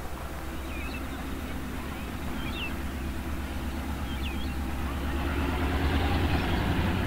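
Diesel locomotive engine running with a low, steady drone that grows louder from about five seconds in.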